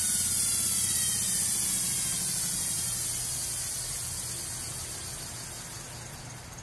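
Antique Century repulsion-start induction-run electric motors coasting down: a whirring hum with hiss that slowly falls in pitch and fades.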